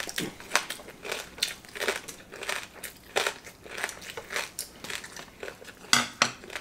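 Close-up crunching of crispy roast pork skin being chewed, in short irregular crunches, with light clinks of chopsticks and plates.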